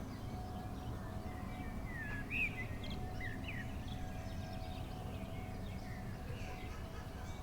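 Birds chirping, a few short calls clustered a couple of seconds in, over a steady low background rumble with a faint constant hum.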